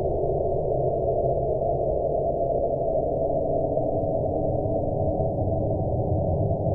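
Sonified seismograms of the 2012 Indian Ocean earthquakes (magnitude 8.6 main shock and 8.2 aftershock): three-component ground-motion recordings sped up 9600 times into the audible range and mixed into stereo. It is a steady, dense noise with no sharp onsets, all of it below about 1 kHz.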